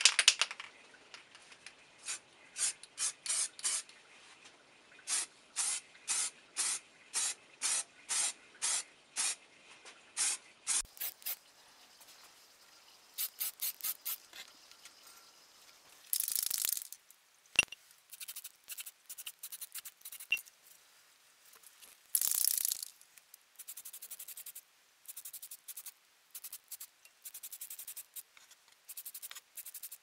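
Aerosol can of Hammerite gold metal paint spraying in many short bursts, about two a second at first, then a couple of longer sprays about a second long and more short bursts.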